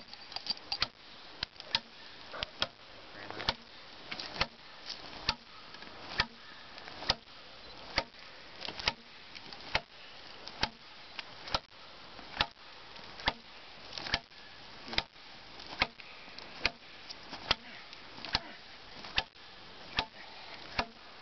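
Hatchet chopping into the side of a large log, one sharp blow of the blade into the wood about every second in an even, unbroken rhythm.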